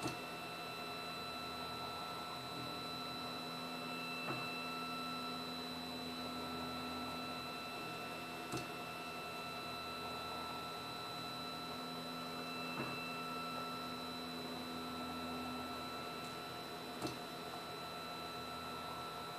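3D printer carrying a diode laser engraving head, running steadily as it rasters back and forth across the plywood: a steady hum of the stepper motors and cooling fan, with a faint tick about every four seconds as the head reverses at the end of each engraved line.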